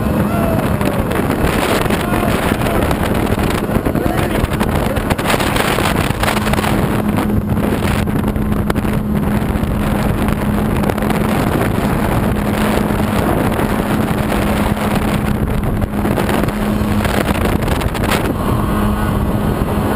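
The Kawasaki 750SS two-stroke jet ski engine of a homemade aluminum jet boat running at a steady speed, with one even engine note. The rush of water around the hull is heard along with it.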